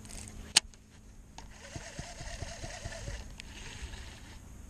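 Baitcasting reel being worked to clear a backlash (a bird's nest) in the line: a sharp click about half a second in, then a run of quick, even ticks, about five a second, lasting a second and a half.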